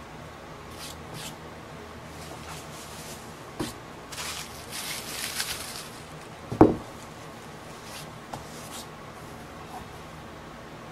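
Handling noise as a 10-ounce silver bar is unwrapped: bubble wrap crinkling and rustling for a couple of seconds as the bar is pulled out, with a sharp knock just before and a single louder knock a little after.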